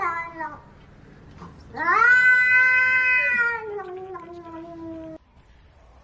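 A cat yowling. The tail of one long drawn-out call fades about half a second in. A second yowl follows, lasting about three and a half seconds; it sags in pitch toward its end and cuts off abruptly.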